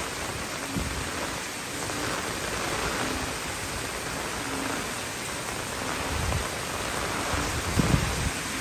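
Typhoon rain falling steadily as a dense hiss, with gusts of wind buffeting the microphone in low rumbles near the end.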